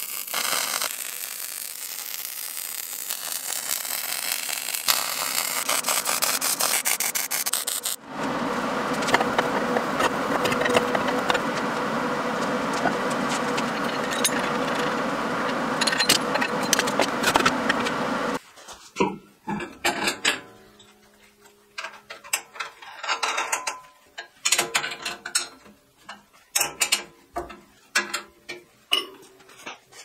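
Arc welding on steel plate: a steady fine crackle for about the first eight seconds. It gives way to a louder, rough, steady noise. From about two-thirds of the way in come irregular metal clicks and clanks as steel parts, a chain and a sprocket are handled.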